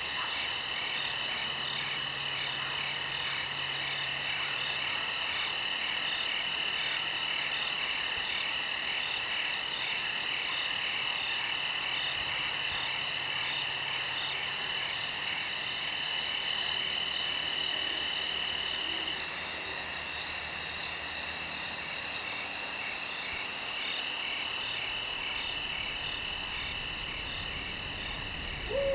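Night chorus of insects trilling steadily in several high overlapping pitches, one of the voices dropping out about two-thirds of the way through.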